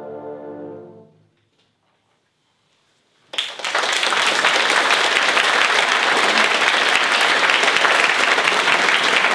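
An orchestra's final held chord fading away over about a second, then a short silence. About three seconds in, the audience starts applauding suddenly and keeps clapping steadily; the applause is the loudest sound.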